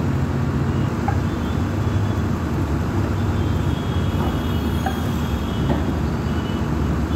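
Diesel engine of a hydraulic rotary piling rig running steadily, a low even drone with a few faint clicks over it.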